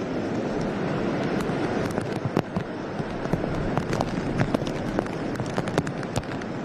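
Storm noise: a steady rush of wind and rain, broken by many irregular sharp cracks and taps.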